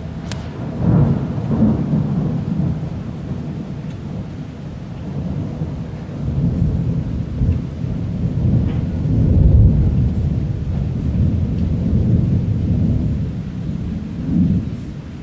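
Thunderstorm: thunder rolling in long low rumbles that swell and fade, with a sharp crack just after the start, over steady rain.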